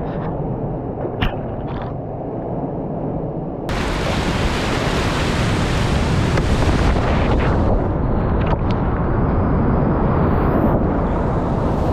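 Rushing whitewater and waterfall noise heard up close as a kayak runs the lip of the falls. It starts muffled, with a sharp click about a second in, then turns suddenly much louder and fuller about four seconds in.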